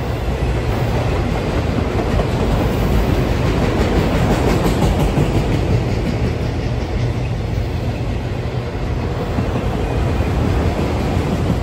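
Empty CSX autorack cars of a freight train rolling past at close range: a steady rumble of steel wheels on the rails, with clickety-clack as the wheels pass over rail joints.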